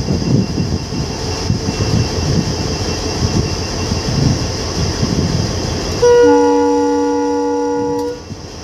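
Rumble and clatter of a moving train for about six seconds, then the horn of an Indian Railways WDG4 diesel locomotive sounds one loud, steady chord of several notes for about two seconds and cuts off sharply.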